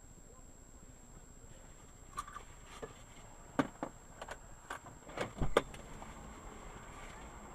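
A series of irregular sharp clicks and knocks, about a dozen over three or four seconds and loudest near the end, over a faint steady high whine.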